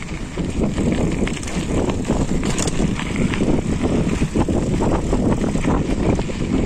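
Mountain bike rolling downhill on a dirt trail: rumbling tyre noise and wind buffeting a body-mounted phone microphone, with a steady clatter of knocks and rattles from the bike over bumps.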